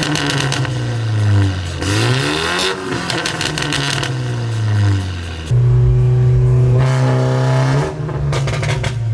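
BMW 330i on an antilag tune, revving: the engine note falls and rises several times between rapid pops and crackles from the exhaust. About five and a half seconds in it jumps to a loud, held high rev, then more crackling near the end.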